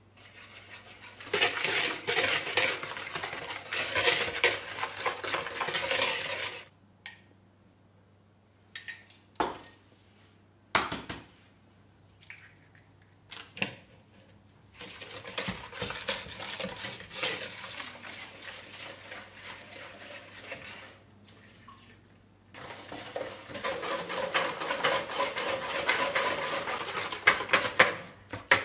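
Wire whisk beating chocolate pancake batter in a mixing bowl, its wires scraping and clicking against the bowl in spells of fast strokes. Around the middle the beating pauses, leaving a few separate knocks.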